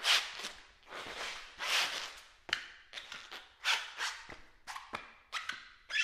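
Rubber-soled shoes walking on a hard floor, with about ten scuffing steps at an uneven pace. Near the end, a few steps give a short rubbery squeal.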